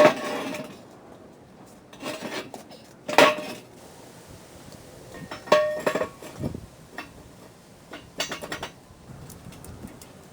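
Pieces of steel clanking against each other as they are handled, each clank with a short metallic ring. It comes in several separate clatters, the loudest at the very start and another about three seconds in.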